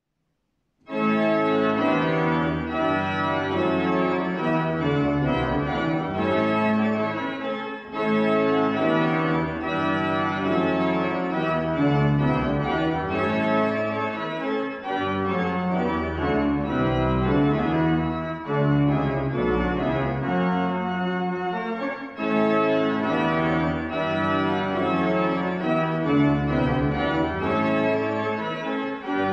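Church organ playing a piece in sustained full chords over a moving bass line, starting about a second in after a brief silence.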